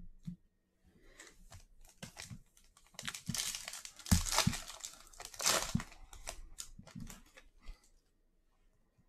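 Plastic trading-card pack wrapper crinkling and tearing, loudest in the middle, amid light clicks of cards being handled.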